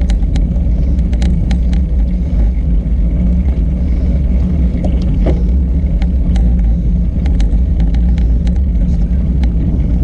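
Wind buffeting a handlebar-mounted GoPro on a moving road bike: a loud, steady low rumble mixed with road noise. Scattered sharp ticks and rattles sound throughout.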